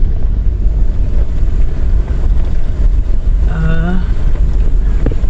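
Steady low rumble of a running vehicle heard from inside its cabin, mixed with wind-like buffeting on the microphone.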